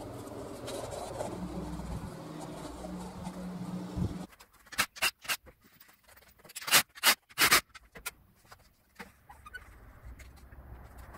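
A steady mechanical hum with a few held tones, cut off abruptly about four seconds in. Then comes a quiet stretch with a series of sharp clicks and knocks, the loudest a cluster about seven seconds in, as a wooden articulated camera arm and the camera on it are handled.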